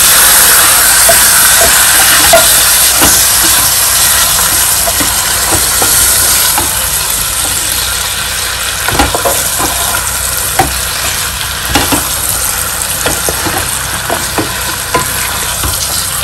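Chicken pieces sizzling as they fry in oil and spice paste, the sautéing (kosha) stage of a curry. A wooden spatula stirs them in a square pan, knocking against the pan a few times.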